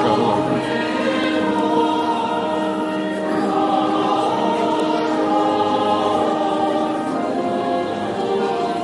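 Choir singing Armenian church chant, slow held notes in several voices, with a change of notes about three and a half seconds in.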